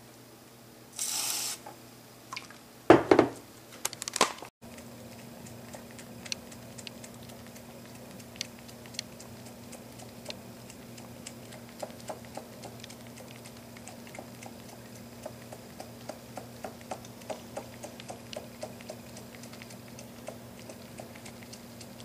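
A short hiss of an aerosol whipped-cream can filling a small bowl, and a knock. Then a cat licks whipped cream from the bowl: a long run of small wet licking clicks, about two or three a second, over a low steady hum.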